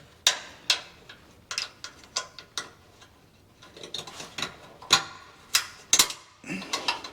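Steel clip nuts being pushed and snapped into square holes in a pickup truck's frame: a series of sharp, irregularly spaced metal clicks and knocks.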